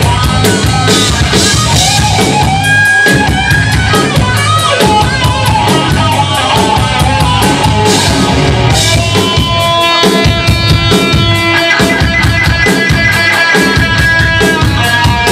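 Live rock band playing loud: drum kit keeping a steady beat under electric guitar and bass guitar, with long held notes from about nine seconds in.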